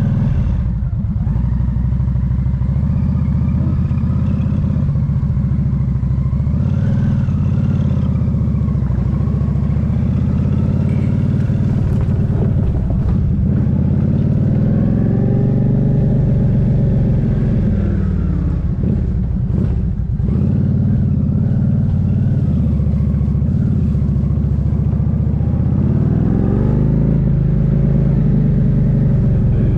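Motorcycle engine heard from the rider's position, revving up and easing off several times as it rides along, its pitch rising and falling with the throttle and gears.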